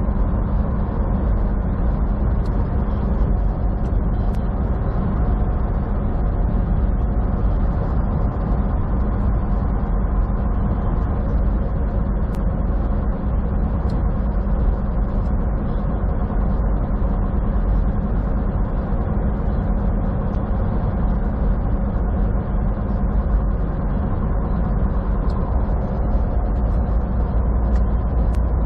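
Semi truck's diesel engine and tyres at a steady highway cruise, heard from inside the cab as an even, low hum.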